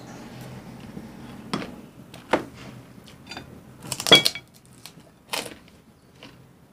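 Spoons clinking and scraping against plates at a meal: a handful of separate clinks, the loudest about four seconds in, ringing briefly.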